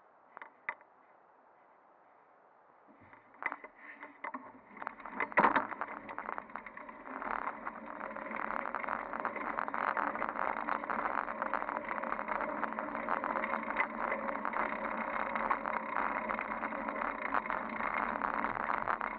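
Fixed-gear bicycle ride heard through a handlebar-mounted camera. A couple of faint clicks come first, then knocks and one loud jolt about five seconds in, and from about eight seconds in a steady rattle and rolling road noise.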